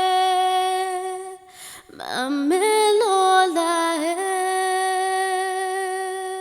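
A woman's voice singing without words in a film score. A long held note breaks off about a second and a half in. A short rising, wavering melodic phrase follows, settling into another long held note.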